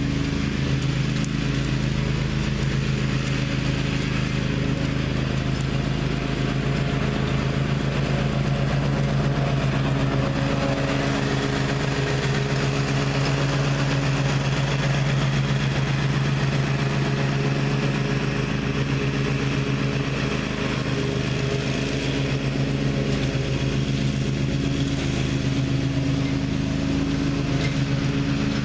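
Gravely ZTx 42 zero-turn mower's engine running steadily while mowing, its pitch and loudness holding even.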